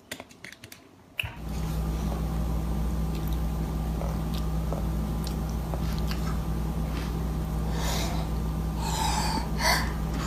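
A steady low hum of room noise starts abruptly about a second in, with faint chewing and mouth clicks from a sleepy toddler eating. Near the end the toddler gives a wide yawn.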